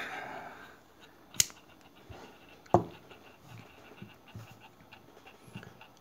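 A Leatherman pocket multitool being handled: a short hiss at the start, then two sharp metallic clicks, about a second and a half in and again just under three seconds in, with faint small ticks between.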